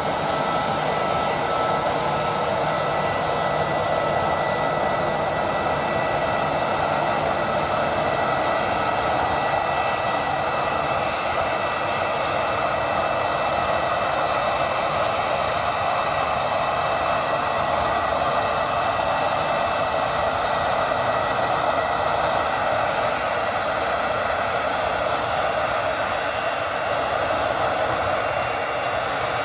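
Airbus A319 jet engines running at taxi power: a steady jet rush with thin whining tones that fade out about halfway through.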